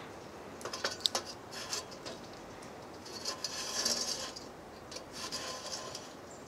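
A metal pot stand being set onto the rim of a Solo Stove Campfire with tongs. There are a few sharp metal clicks about a second in, then bouts of metal scraping and rubbing on metal as it is worked into place.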